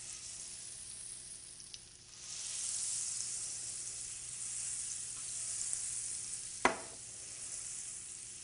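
Butter melting and sizzling in hot olive oil in a non-stick skillet, the hiss swelling louder about two seconds in. A single short knock comes near the end.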